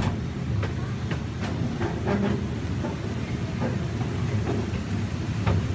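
Zoo train running along its track, heard from a riding passenger car: a steady low rumble with irregular clacks and knocks from the moving cars.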